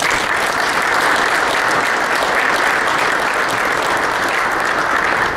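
Audience applauding in welcome, dense and steady, starting all at once.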